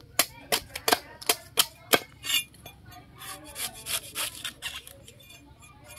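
Large cleaver-style knife chopping into a young coconut's husk, about six sharp strikes in the first two seconds, then softer scraping as the blade shaves the husk away.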